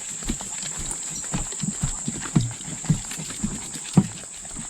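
Footsteps pushing along an overgrown path, irregular soft thuds and brushing through vegetation, over a steady high hiss.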